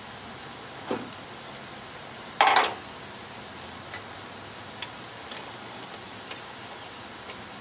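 Scattered metal clicks and clinks of a ratchet wrench and socket extension working engine bolts loose, with a louder quick rattle of several clicks about two and a half seconds in, over a steady background hiss.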